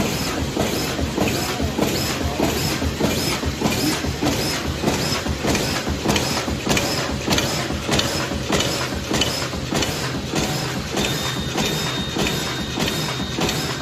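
Automatic bag-making machine running at speed: a steady mechanical clatter with regular strokes, a little under two a second. A faint high steady whine joins in for the last few seconds.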